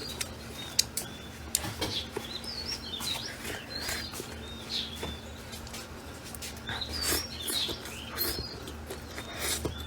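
Small birds chirping repeatedly in short, high, bending notes, with scattered sharp clicks over a steady low hum.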